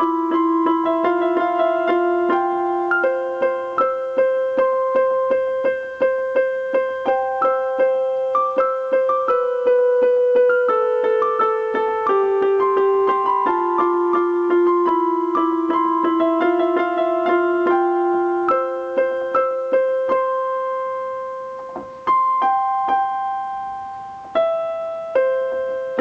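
Piano playing a slow melody over repeated notes, struck about twice a second. The notes fade out about 21 seconds in, and then a few single notes are struck near the end.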